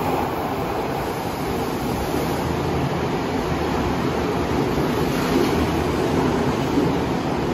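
A Tokyo Metro Tozai Line subway train pulling into an underground station platform: a steady rushing rumble of wheels and running gear as it slows alongside the platform doors, with no distinct squeal.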